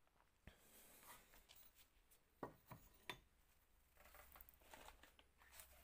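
Faint rustling and handling of loose RC car parts in a suitcase, with three light clacks of parts knocking together about halfway through.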